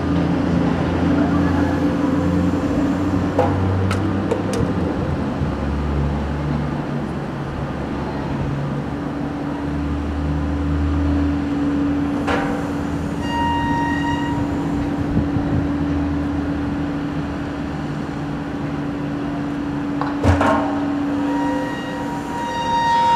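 Cargo-handling crane machinery running steadily during a lift, a low drone that shifts in pitch with a held tone through the middle. A few sharp metallic knocks come through, and a brief higher tone sounds around the middle and again near the end.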